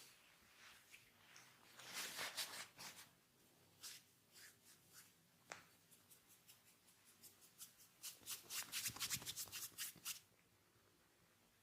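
Hands rubbing and scratching through hair and over the scalp during a head massage: soft crackling, rustling strokes in short runs, with a denser, quicker run about eight seconds in that stops about ten seconds in.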